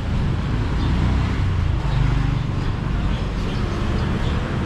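Steady low rumble of road vehicle noise, even throughout with no distinct events.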